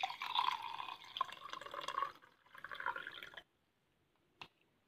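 A cup of boiling water is poured into a glass jar of seeds, splashing and bubbling over them. The pour dips briefly and stops suddenly about three and a half seconds in, and a single light click follows near the end.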